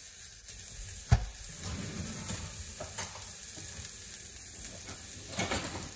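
Chopped onion sautéing in olive oil in a nonstick frying pan: a steady sizzle with scattered small crackles. One sharp knock about a second in.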